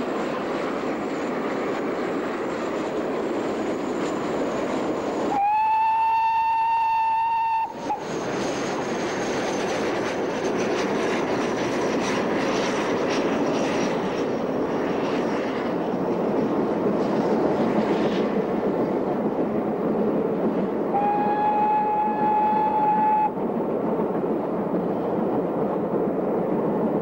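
Great Western steam locomotive hauling a passenger train, running with a steady rumble of exhaust and wheels. Its whistle sounds two long blasts, the first about five seconds in and lasting about two and a half seconds, the second about twenty-one seconds in and lasting about two seconds at a slightly lower pitch.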